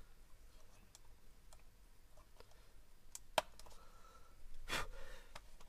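Faint clicks and light taps of small plastic parts as gauge needles are pressed onto a car instrument cluster, with one sharper click about three and a half seconds in and a short rustle near the end.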